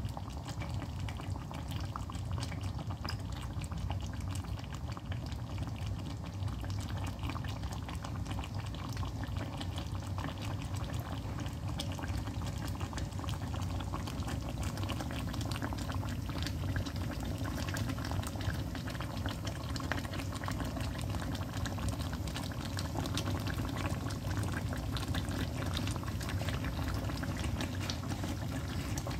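Creamy chicken curry sauce simmering in a frying pan, bubbling steadily with many small pops and crackles, over a steady low hum.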